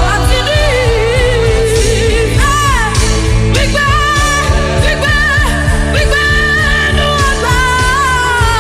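Gospel worship music: a woman's voice singing a wavering, ornamented melody over sustained keyboard chords, bass and a steady drum beat.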